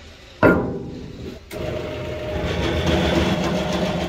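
A heavy steel clank with a short ring about half a second in, as steel parts are set on a track adjuster recoil spring. About a second later the hydraulic press's pump motor starts and runs steadily.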